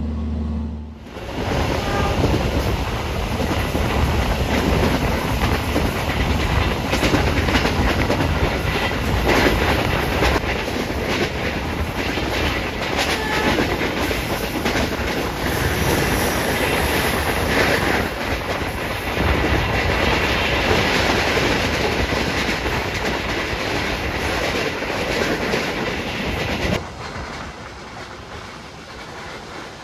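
KA Logawa's stainless-steel Economy New Generation passenger train running on the rails, its wheels clattering over rail joints with a dense, loud rush of noise. The sound drops abruptly to a quieter rumble near the end.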